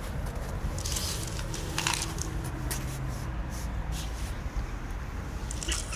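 Several short rustles and scrapes, about five in all, over a steady low outdoor rumble.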